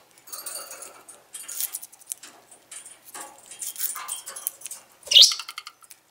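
Budgerigar at a piece of red chard: a busy run of quick beak clicks and soft high chatter, with one short, louder rising chirp about five seconds in.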